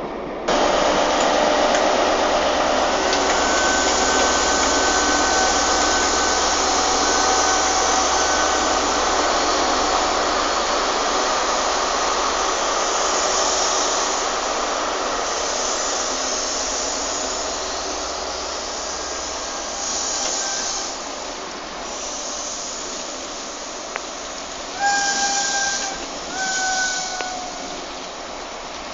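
A train running through the station: a steady rushing hiss with a few steady tones that starts suddenly and slowly fades, then two short high tones near the end.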